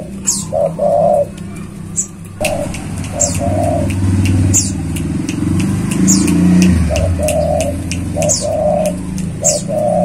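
Spotted dove cooing in short phrases of two to four low notes, repeated several times. High thin chirps from another bird come every second or two, over a low rumble in the middle.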